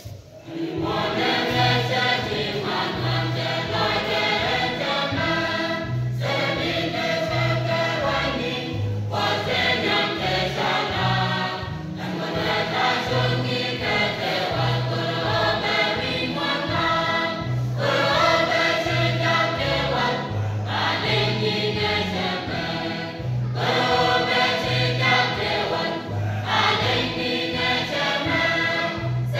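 Church choir singing together in phrases of about three seconds with short breaks between them, over a steady low beat. The singing begins about half a second in.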